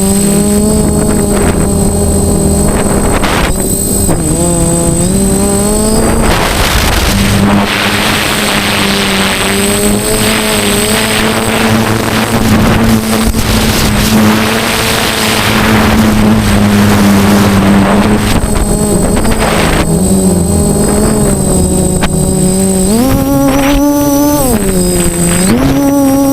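DJI F450 quadcopter's motors and propellers running in flight, a steady buzzing whine with a rushing noise through the middle; the pitch steps up twice near the end.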